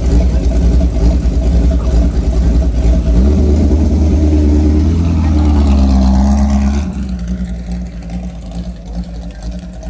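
GT40-style race car's V8 engine running loud at close range, revving up as the car pulls away about three seconds in, then fading as it drives off.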